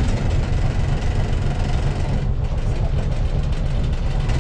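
The engine of an open canal trip boat running steadily at low speed, a constant low engine note with a fast, even pulse, heard from on board.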